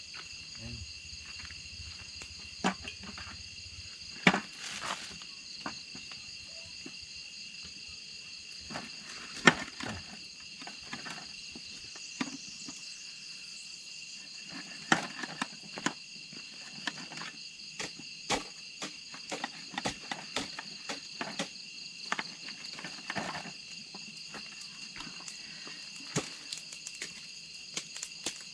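Steady chorus of night insects, with scattered short clicks and knocks of a utensil working in a stainless-steel bowl, the loudest about four and nine seconds in.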